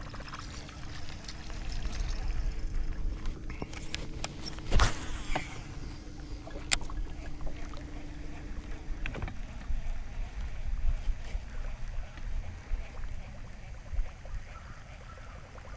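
A buzzbait being cast and retrieved across the water surface on a baitcasting reel, the blade churning the surface, with a few sharp clicks along the way. A steady low hum runs under the first part and stops about nine seconds in.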